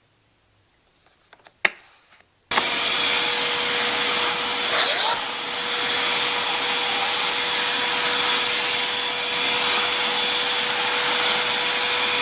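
Eureka AirSpeed All Floors AS3011A upright vacuum cleaner, a few clicks and then switched on about two and a half seconds in, running steadily: a rush of air with a steady whine under it.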